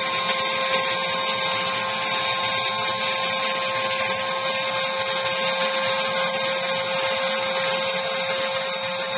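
Airbrush spray-tan machine running steadily while spraying tanning solution: a constant motor whine over a rushing air hiss.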